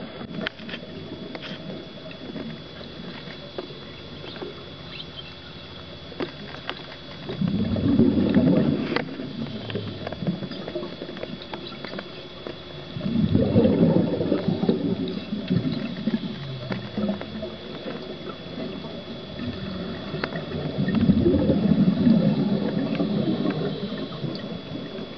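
Underwater recording of a scuba diver's exhaled bubbles gurgling and crackling, in three long bursts roughly every six to seven seconds, with quieter bubbling and a faint steady high tone between them.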